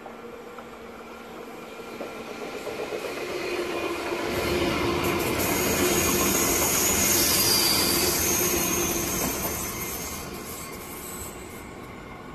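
NS double-deck train passing on the near track: the rolling noise of its wheels on the rails builds up, peaks as it goes by with a faint high whine, then fades as it pulls away.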